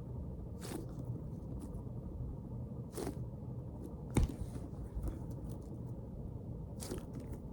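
Handling of foam squishy toys being squeezed: four brief rustles or taps, the loudest about four seconds in, over a steady low rumble.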